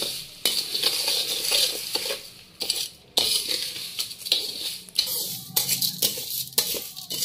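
Steel slotted spoon scraping and clinking against a steel karahi, stirring sugar grains through hot ghee as the sugar melts, with a brief pause about halfway.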